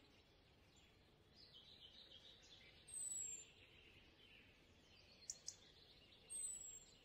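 Near silence: faint background hiss, with two short, high, falling chirps about three seconds apart and two light clicks just after the middle.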